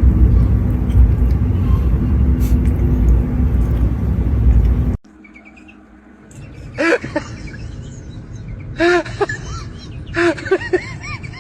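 A loud, steady low rumble that cuts off abruptly about five seconds in. Then three short bursts of high, pitched chirping calls from an animal.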